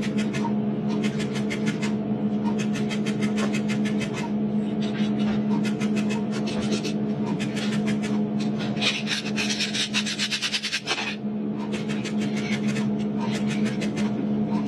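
Powder spot-welding pen's copper electrode crackling with rapid sparks in runs about a second long, as it fuses metal powder into a gap on a cylinder head. A steady electrical hum runs underneath, and the crackle is denser and harsher for a moment past the middle.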